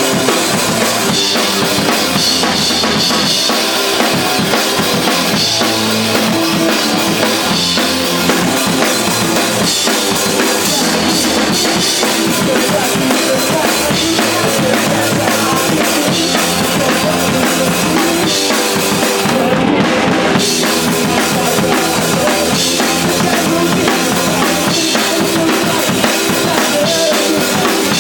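A band playing an instrumental passage live, driven by a full drum kit with bass drum and snare. The high end drops out for a moment about twenty seconds in.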